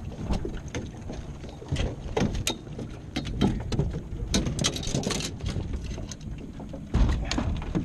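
Irregular knocks, taps and rattles against an aluminum boat's hull and floor as a netted striped bass is brought aboard, thickest in the middle, with a heavier thump near the end.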